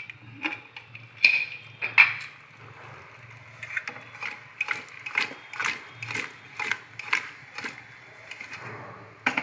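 Metal pressure cooker lid clanking twice as it is lifted off. Then the cooker is shaken to toss the sweet potato pieces inside, a rhythmic clatter about twice a second.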